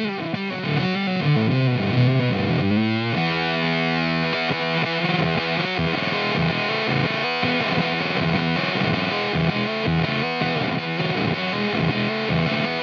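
Electric guitar with P90 pickups (a Fano Omnis MG6) played through a Teisco Fuzz pedal with its octave engaged: heavily distorted single notes. The pitch bends in the first three seconds, then comes a steady run of picked, sustained notes.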